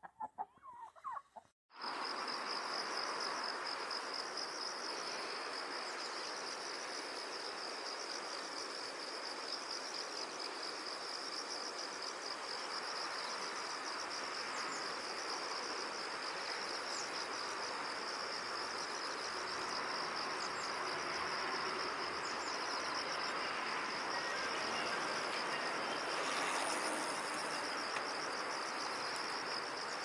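A few chickens clucking briefly at the start, then after a sudden cut a steady insect chorus: a fast, high, pulsing trill that never lets up, over an even hiss.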